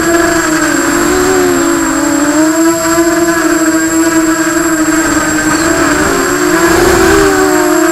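Brushless motors and propellers of an Emax Nighthawk Pro 280 racing quadcopter buzzing loudly in flight, close to the onboard camera's microphone. The pitch wavers up and down as the throttle changes through the turns, dipping about a second in and again near the end.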